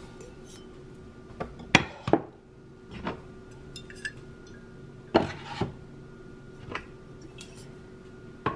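Glass wine bottles being slid into the slots of a wooden countertop wine rack: several separate clunks and clinks of glass against wood, one every second or so.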